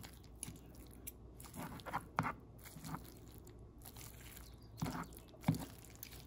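Fork pulling apart tender braised beef: a handful of short, soft, wet tearing and scraping sounds, spaced out irregularly.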